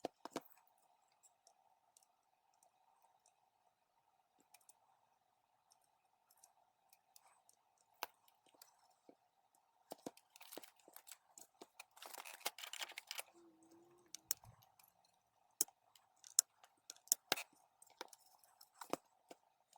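Small hand tools handled during soldering work on a circuit board: scattered sharp clicks and taps, with a short stretch of rustling and scraping about ten seconds in, over a faint steady hum.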